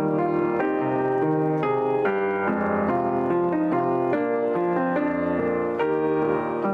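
John Broadwood & Sons barless grand piano, 6 ft 8 in, being played: a steady run of melody notes over ringing chords that change every half second or so.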